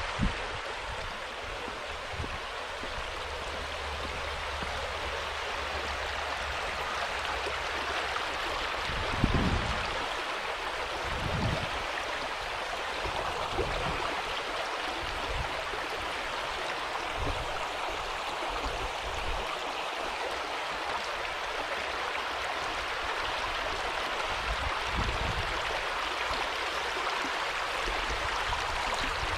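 Steady rush of flowing water, with a couple of low bumps about nine and eleven seconds in.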